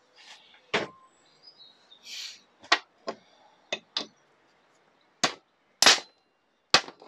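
Hammer striking a socket held as a drift on a bearing in a Yamaha TZR 125 aluminium crankcase half, knocking the bearing out: about eight sharp metallic knocks at irregular intervals. The case was first warmed with a gas torch to loosen the bearing.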